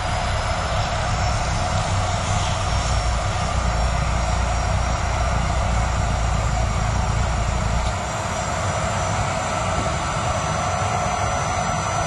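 Miele canister vacuum cleaner running steadily, its motor giving a constant whine. The low rumble under it eases about eight seconds in.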